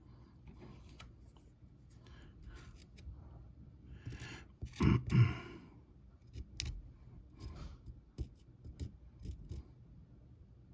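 Intermittent light scrapes and small clicks of hands and a tool working wet spackle onto a miniature model house, with a louder rubbing handling noise about five seconds in.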